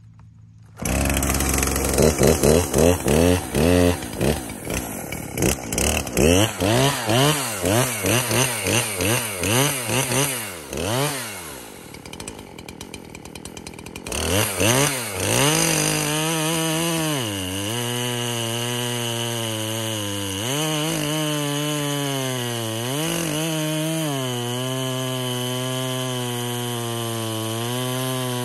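Poulan Pro PR5020 50cc two-stroke chainsaw starts about a second in and revs up and down in quick pulses for several seconds. It then runs near full throttle as it cuts through a pine log, its pitch dipping repeatedly as the chain bites into the wood.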